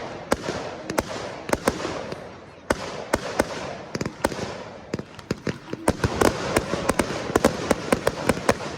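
Fireworks display: a string of sharp bangs over continuous crackling, the bangs coming thick and fast in the last few seconds.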